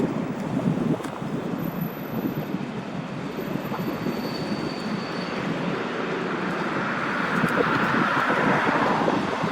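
Diesel-hauled train rolling through railway points, its wheels squealing and grinding against the rails over a steady rumble; the grinding grows louder in the second half.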